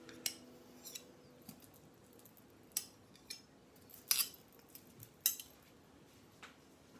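Metal spoon and knife clinking against each other and against a steel weighing-scale bowl as spread is scraped off into it. Scattered sharp clinks with quiet between them, the loudest about four and five seconds in.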